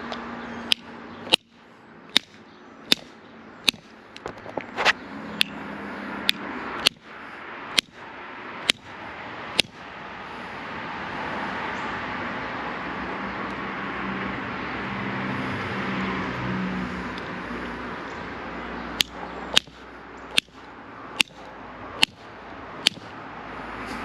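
Channel-lock pliers striking a soldered copper pipe fitting in a steady run of sharp metal blows, a little more than one a second, to crack the solder joint and make it leak. The blows stop for about nine seconds midway while a rushing noise swells and fades, then resume near the end.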